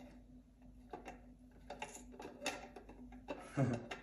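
Light metallic clicks and scrapes of a wrench and crank tool being worked against a bicycle crankset held in a vise, a handful of separate clicks with a louder knock about three and a half seconds in.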